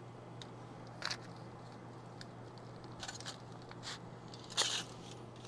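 A few short, quiet scrapes and taps of a knife cutting into smoked beef short ribs on a cutting board, the loudest near the end, over a faint steady hum.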